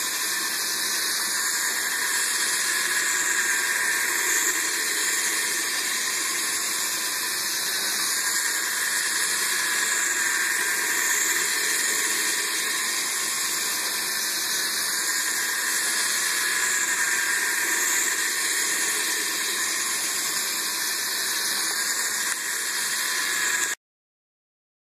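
Battery-powered toy train running steadily around its plastic track: a continuous whirring hiss of the small motor and wheels. It cuts off abruptly near the end.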